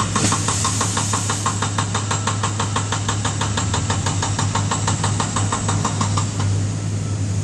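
Small crawler bulldozer's diesel engine running steadily under load as it pushes soil, with a fast, even clatter of about five clicks a second that stops about six seconds in while the engine keeps running.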